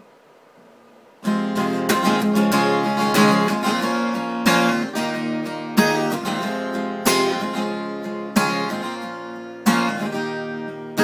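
Acoustic guitar strumming a song intro, starting about a second in, with a strong accented strum roughly every second and a half.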